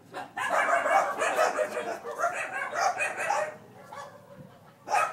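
Domestic animal calls: one long, loud call lasting about three seconds, then a short call near the end.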